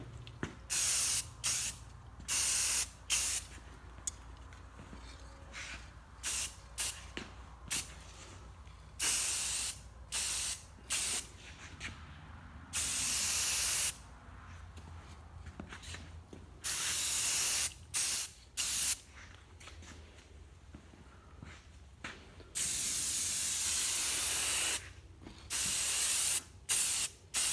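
Aerosol spray-paint can spraying a coat of paint in a string of separate bursts of hiss, from brief puffs to one about two and a half seconds long.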